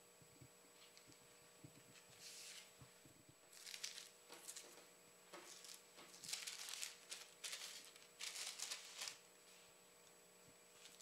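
Paper napkins rustling and crinkling as they are handled and laid out on a table, in a run of short crisp bursts.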